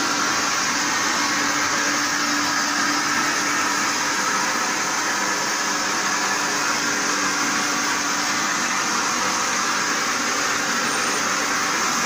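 Stainless-steel grain and bean washing machine running with a steady, unchanging whir, and water pouring from its outlet spout into the mesh tray.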